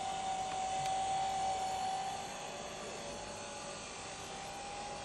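A steady mid-pitched hum over open-air background noise. It is clear for about the first two seconds, then drops away and comes back fainter near the end.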